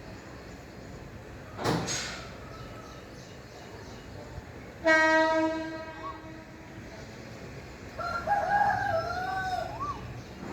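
A single steady horn-like blast about halfway through, fading over a couple of seconds, then a rooster crowing with a wavering pitch near the end. A brief knock comes about two seconds in.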